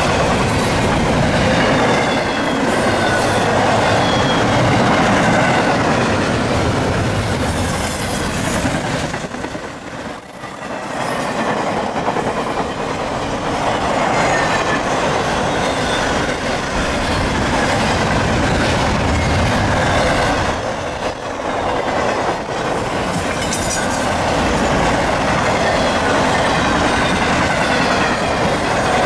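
CSX intermodal freight cars rolling past on a curve: a continuous rumble of wheels on rail with clacking over the joints and high-pitched flange squeal. The sound eases briefly about a third of the way in and again past two thirds.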